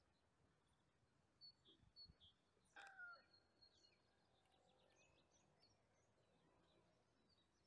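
Quiet outdoor ambience: faint birds chirping here and there, a few soft low thumps, and one short, louder call with a slightly falling pitch about three seconds in.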